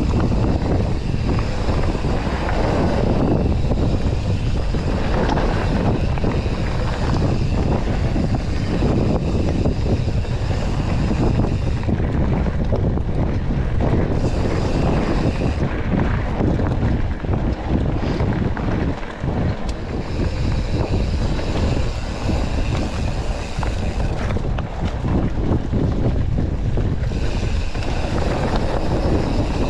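Steady rushing of wind buffeting a chest-mounted action camera's microphone, over tyre and frame noise, as a mountain bike is ridden down a trail.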